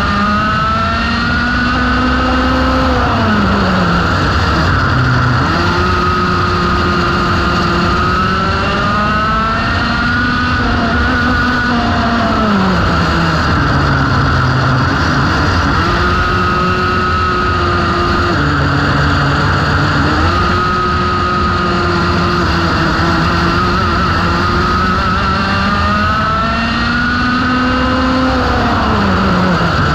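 Vintage sidewinder racing kart's two-stroke engine at race speed, heard onboard: the pitch climbs steadily along each straight and falls sharply four times as the kart slows for corners, then climbs again.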